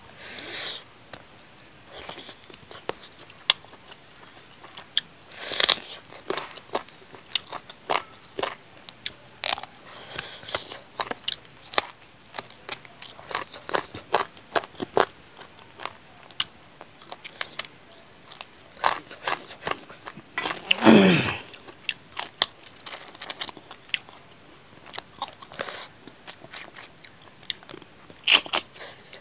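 Close-miked mouth sounds of a man eating chicken curry with rice by hand: biting and chewing meat off chicken bones, with many short wet smacks and crunches. About two-thirds of the way through comes one louder, drawn-out sound that falls in pitch.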